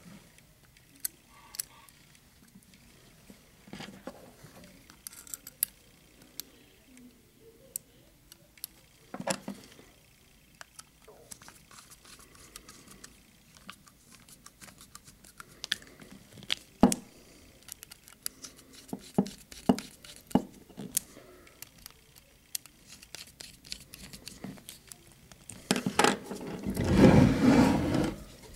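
Scattered light clicks and taps of small metal parts and a screwdriver as the cover screws go back into a seven-lever safe lock. About 26 seconds in, a louder scraping rustle lasts a couple of seconds.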